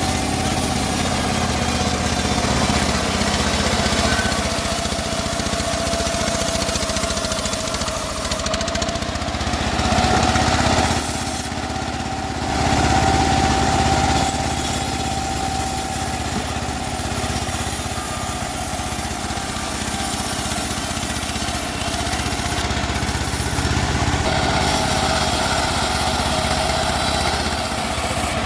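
Homemade bandsaw running and cutting teak: a steady machine drone with a held whining tone, which shifts pitch and briefly dips in level about ten to twelve seconds in.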